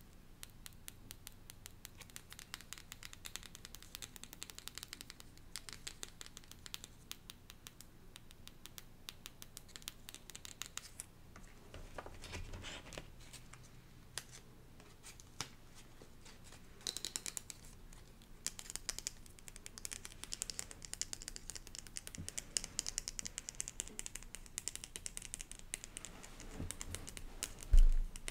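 Long fingernails tapping quickly and scratching on paper cards and a small cardboard card box, with rougher scratching stretches partway through. A loud thump comes near the end.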